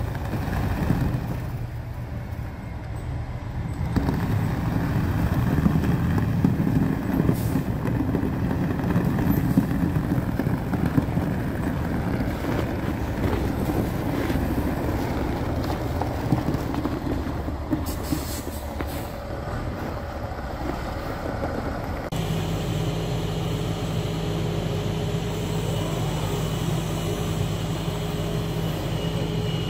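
Diesel engine of a loaded logging truck running as it reverses slowly, with a few short hisses. About three quarters of the way in the sound switches abruptly to a steady engine hum with the truck parked and its loader crane running.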